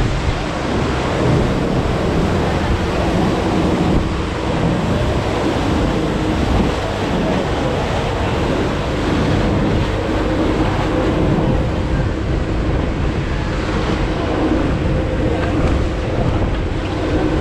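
Speedboat running at speed: wind buffeting the microphone and the rush and hiss of the churning wake, over the steady hum of the boat's engines.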